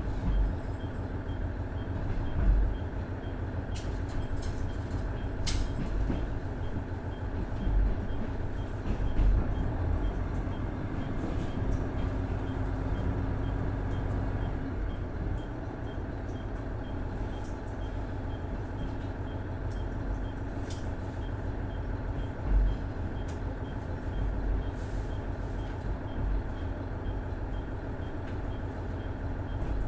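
Onboard running sound of a KiHa 110 series diesel railcar, its Cummins DMF14HZA engine running steadily under way, with occasional low thumps and a few sharp rattles and clicks.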